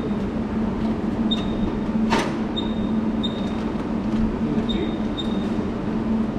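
Steady hum of the resistance spot welding machine, with a low tone held throughout. Short high pips recur irregularly, about a second apart, and a single sharp click comes about two seconds in.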